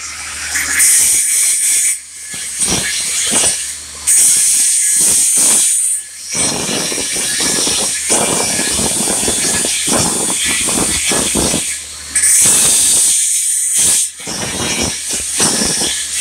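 Angle grinder with its disc against a metal weld test piece, grinding with a loud hiss and rough chatter. The sound dips briefly several times, about two, six, twelve and fourteen seconds in.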